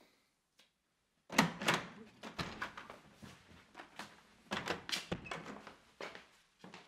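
A door opening sharply about a second in, then irregular heavy footsteps and thumps on a wooden floor.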